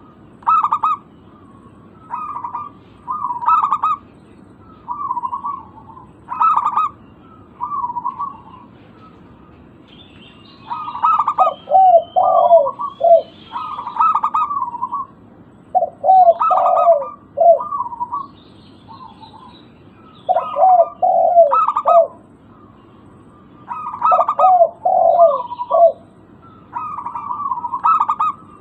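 Zebra doves cooing in repeated phrases of quick, bouncing coo notes, a phrase every second or two, many of them ending in lower notes. Faint high chirps from small birds come in now and then.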